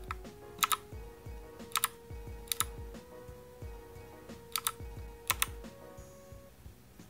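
Keys of a Motospeed CK61 mechanical keyboard being pressed one at a time to step through its RGB lighting modes. Five sharp clicks come spread over about five seconds, each a quick double click of press and release.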